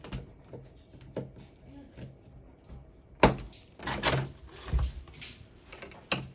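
Scattered clicks and knocks of door-lock hardware being handled and fitted into a door, the sharpest a single loud click a little past the middle, with a dull thump shortly after.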